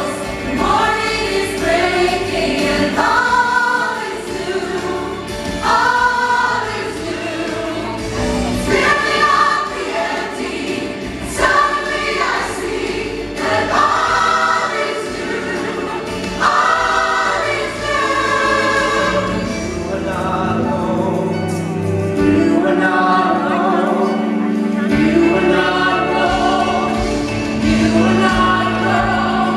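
A musical-theatre ensemble singing together in choir-like harmony, in phrases that give way to long held notes in the second half.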